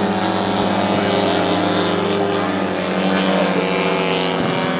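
The 150cc gasoline engine of a giant-scale RC Pitts Model 12 biplane running in flight, a steady drone with one clear pitch. Near the end there is a brief click and the pitch rises slightly.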